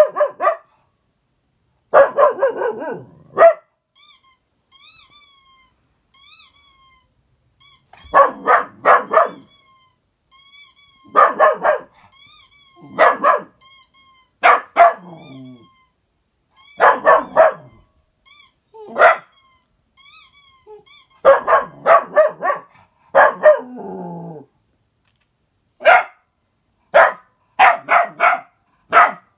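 A dog barking in quick bursts of several barks each, with short pauses between. Faint, high, thin chirping calls come between the bursts in the first half.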